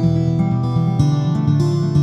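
Background music: acoustic guitar playing steadily plucked and strummed chords.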